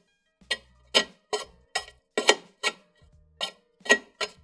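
Sharp metal clicks and clinks, about ten in four seconds at an uneven pace, as hand tools and bolt hardware work on a golf cart's rear stabilizer bar bracket.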